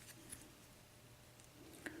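Near silence, with two faint, sharp metal clicks from a tool working at the retaining clip of a Euro lock cylinder held in a vise.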